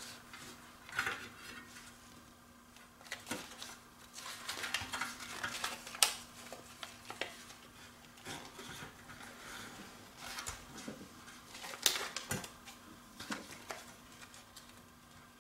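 Self-adhesive Velcro tape being peeled from its backing paper and pressed down along a pedalboard rail by hand: quiet rustling and crinkling of the backing, with scattered light clicks and taps, the sharpest about six and twelve seconds in.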